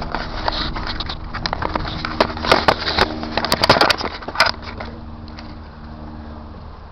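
Dry crunching and crackling, like feet moving through dead leaves and grass, for the first four seconds or so, over the steady hum of a 1996 Honda Civic's four-cylinder engine running, which carries on alone after the crackling stops.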